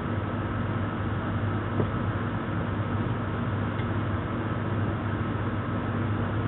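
Steady low mechanical hum over a constant background noise, with a faint click about two seconds in.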